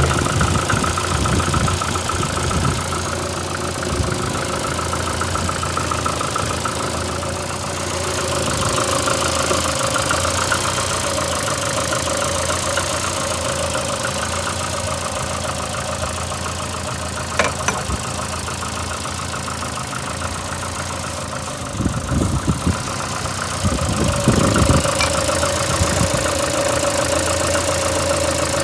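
VAZ 2115 eight-valve petrol engine idling steadily, with a knocking, rubbing noise. A few sharper clicks come through about two-thirds of the way in. The owner links the fault to a blown head gasket on cylinder one and says the engine misfires when cold.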